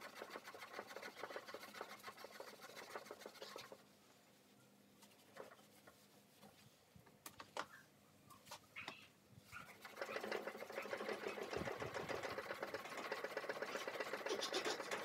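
Fast back-and-forth scrubbing of a small hand scrubber on a wet stainless-steel barbecue edge, working at soaked burn marks. Two spells of rapid even strokes: one over the first four seconds, then a pause with a few light knocks, then louder scrubbing from about ten seconds in.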